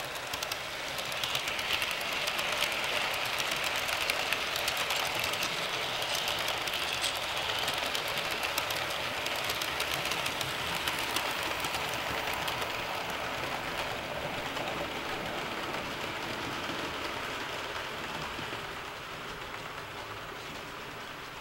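HO scale model trains rolling past on the track, a steady rattle of small wheels with many fine clicks and a motor whir. The sound fades near the end as the trains move off.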